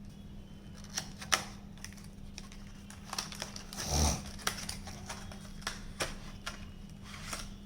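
Scattered light clicks and taps of hands handling the opened laptop and its hard drive, with a soft thump about four seconds in, over a faint steady low hum.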